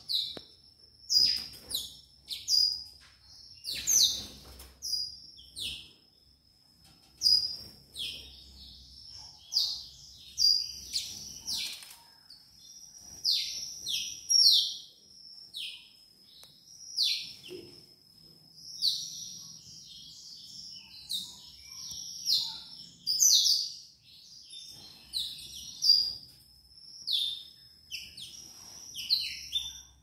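Caged blackthroats (black-throated canaries) chirping: many short, sharp, downward-sliding calls, a few per second in bursts, over a faint steady high tone.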